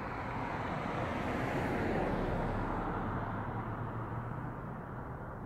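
A road vehicle passing on the street. Its noise swells to a peak about two seconds in and then fades, over a steady low hum.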